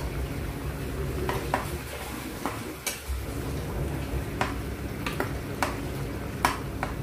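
Metal spoon stirring squid in a nonstick pot, knocking and scraping against the pot several times at uneven intervals, over the steady bubbling of the simmering sauce.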